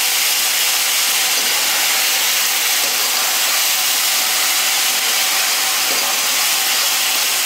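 Onion paste frying in hot mustard oil in a metal kadhai as it is stirred: a loud, steady sizzle.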